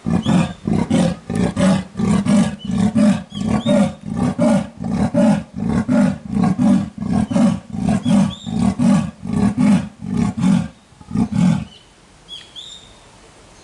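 A big cat calling: a long, even series of loud, deep, rasping grunts, about two or three a second, that stops abruptly about twelve seconds in. Birds chirp faintly over it.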